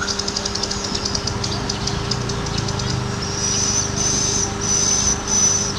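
Insects buzzing: a fast-pulsing high buzz, then a steadier high buzz in about four long pulses from a little past halfway, over a steady low hum.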